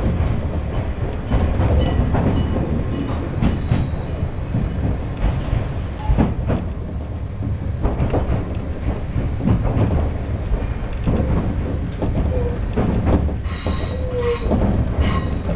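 Kumamoto Electric Railway 6000-series electric train running along the track, heard from inside the front of the car: a steady low rumble of the wheels with irregular clacks over the rail joints. Near the end the wheels start a high-pitched squeal as the train takes a curve.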